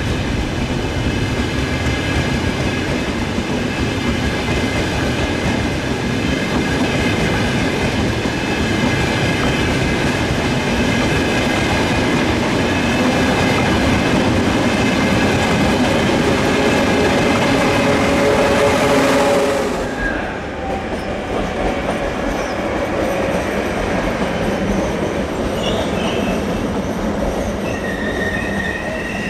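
A train moving on the tracks: steady rumbling rail noise with high whining and squealing tones from the wheels. About twenty seconds in the sound drops abruptly, leaving a quieter train noise with brief high wheel squeals near the end.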